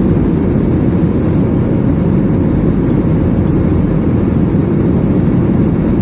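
Steady cabin noise of an Airbus A320-family jet airliner in cruise, heard from a seat beside the wing: engine and airflow noise, low and even, with no changes.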